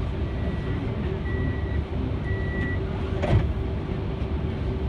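Steady low rumble of city traffic, with three short high beeps about a second apart early on, like a vehicle's warning beeper, and a single sharp knock a little past the middle.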